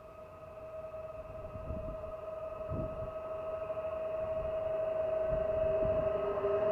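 A PKP Intercity electric multiple unit approaching: a steady whine from its electric drive grows steadily louder, and a second, lower tone joins near the end. A few low rumbling gusts come and go underneath.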